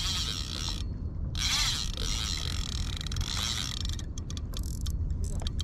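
Fishing reel working under load from a hooked fish, a big corvina (meagre): its gears whir and its drag ratchets unevenly, with a run of rapid clicks in the last second and a half.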